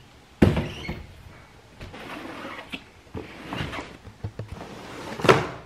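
Handling noise from a stack of paper brochures and booklets being carried and set down on a hardwood floor: a sharp knock about half a second in, soft rustling and bumps, and another sharp knock near the end.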